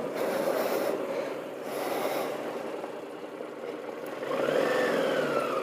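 Yamaha TDM 850's parallel-twin engine running under wind noise, heard through a helmet-mounted camera while riding. From about four seconds in, a tone rises and then falls away.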